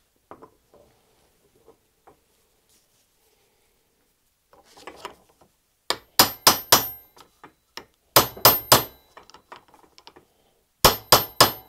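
Hammer tapping to knock an aluminium plug out of a hydraulic pump's cover. The taps come in three quick groups of three or four sharp, ringing metallic strikes, after some faint handling.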